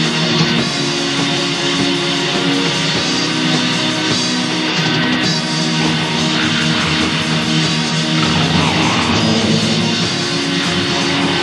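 Black metal music from a lo-fi rehearsal demo recording, led by electric guitar playing held chords.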